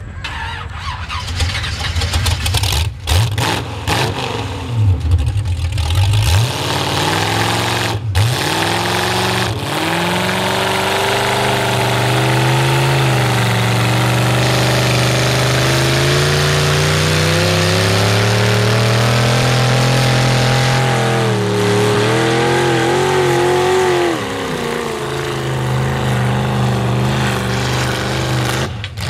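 Chevy mud truck's engine running through open upright headers, starting back up after a stall in the first few seconds, then revving hard as the truck pushes through deep mud, its pitch climbing and falling with the throttle.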